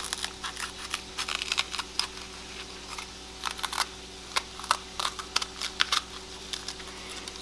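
Crisp snapping and crackling of a green bell pepper as it is pulled apart and cored by hand with a small knife: a run of irregular short clicks.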